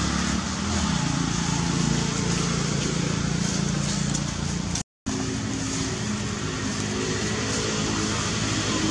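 Steady low motor hum, like an engine running nearby. It cuts out completely for a moment about five seconds in.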